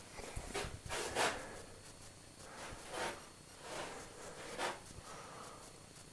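A brush scrubbing an iron artillery shell fresh out of an electrolysis bath, in about four separate rasping strokes, the loudest about a second in. It is loosening the last flakes of rust left after electrolysis.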